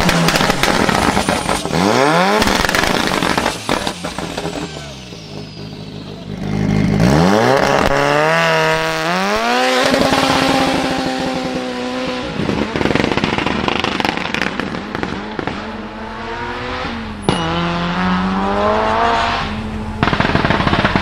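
A high-performance car engine revved hard several times, its pitch climbing steeply and falling back, once held high for about two seconds. Sharp exhaust pops and crackles sound between and after the revs.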